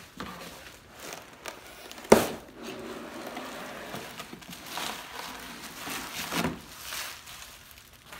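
Unpacking a cardboard shipping box: bubble wrap and cardboard rustling and crinkling as a bubble-wrapped skateboard deck is handled and lifted out, with one sharp knock about two seconds in.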